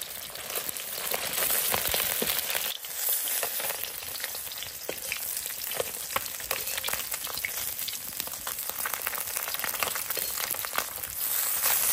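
Small wild stream fish frying in hot oil in a wok over a wood fire: a steady sizzle full of small pops and crackles, with a metal spatula moving and turning the fish in the pan.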